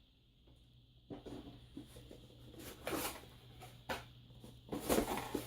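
A boxed KVM switch being unpacked by hand: short rustles, scrapes and light knocks of cardboard and packaging, scattered every second or so, the busiest near the end.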